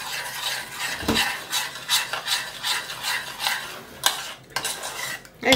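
Metal spoon scraping and tapping in a bowl of ice cream topped with drizzled chocolate sauce, in repeated quick strokes, with one dull knock about a second in.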